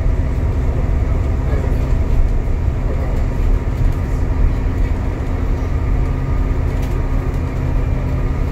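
Upper-deck cabin noise of an Alexander Dennis Enviro400 MMC diesel double-decker bus travelling at speed: a steady engine drone and low road and tyre rumble.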